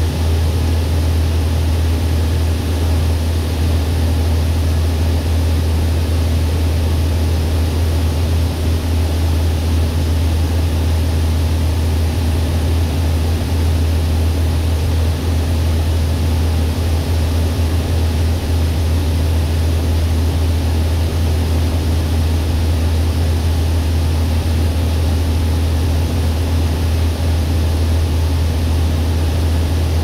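Heavy farm machinery engine running at a steady speed: a loud, even low drone with a constant hiss over it that does not change.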